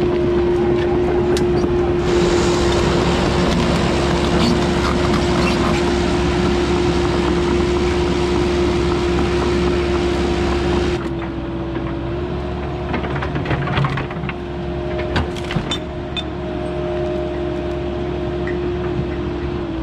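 Cat 308 mini excavator running hard, a steady hydraulic whine over the diesel engine. About eleven seconds in the load eases and the machine runs quieter, with a run of sharp knocks and cracks over the following few seconds.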